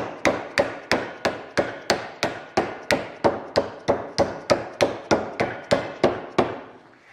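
Dead blow hammer striking the flange of a sheet-metal rib clamped between wooden form blocks in a vise: about twenty even blows, roughly three a second, stopping shortly before the end. This is the flange being hand-formed over the form block, on a first pass bending it toward about 45 degrees.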